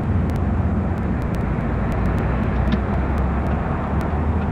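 Steady low rumble of street traffic and a car's own engine and tyres, heard from inside a moving car, with large trucks and a bus running close alongside.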